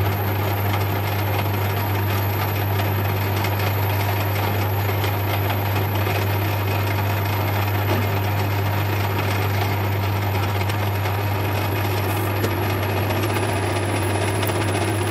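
Metal lathe running steadily, its chuck spinning a bar of aluminium stock while the tool turns it down, with a constant low hum from the machine.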